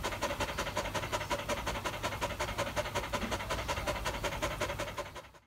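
Whippet panting in a rapid, even rhythm, fading out near the end.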